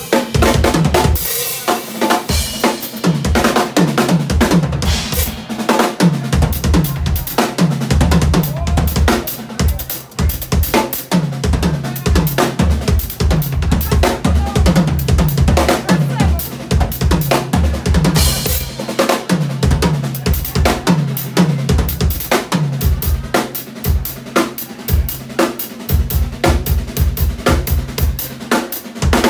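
Yamaha drum kit played live and hard: fast bass drum, snare and tom strokes with rimshots and rolls, running without a break.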